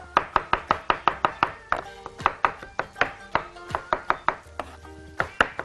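Chef's knife chopping soft roasted eggplant and peppers on a wooden cutting board, rapid knocks about four a second, working them to a coarse mash.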